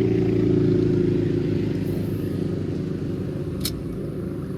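An engine running at a steady pitch, slowly getting quieter, with one sharp click about three and a half seconds in.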